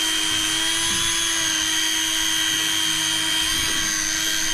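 Electric deep-drop fishing reel's motor whining steadily as it winds line against a heavy fish, straining under the load.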